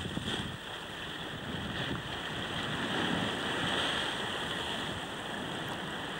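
Sea swell surging and washing against the base of a sandstone rock ledge: a steady churning surf noise.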